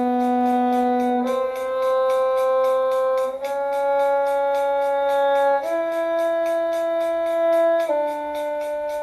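Five long, steady notes played slowly in turn, B, C, C sharp, E and D, each held about two seconds, as a shifting drill. Under them runs a fast, even ticking beat of about four ticks a second.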